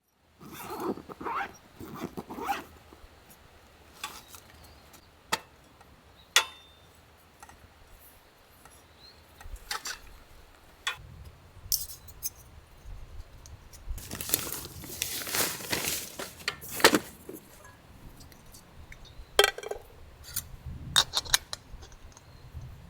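Gear being handled by hand: scattered light clinks and taps, with a longer stretch of rustling about fourteen to seventeen seconds in.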